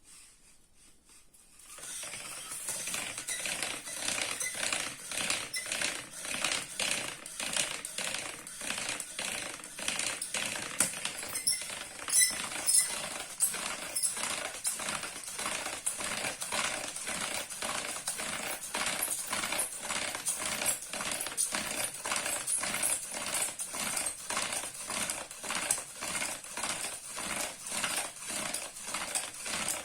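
Rhythmic wood-on-wood friction from a primitive fire-making tool worked in quick, regular strokes, starting about two seconds in.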